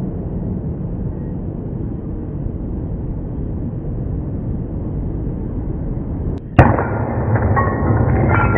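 Edited soundtrack: a steady low rumbling drone, then a sudden loud hit about six and a half seconds in, after which music with sustained bright notes begins.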